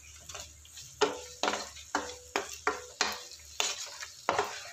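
Wooden spatula stirring and scraping sliced onions and tomatoes around a non-stick pan, in about nine quick strokes, over the sizzle of them frying in oil.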